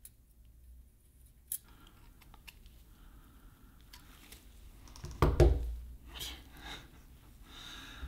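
Small metal parts of a smoke detector clicking and scraping as they are handled and screwed together. A loud knock comes a little after five seconds in.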